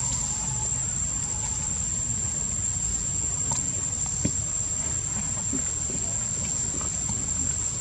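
Insects trilling as one steady, unbroken high-pitched drone, over a constant low rumble.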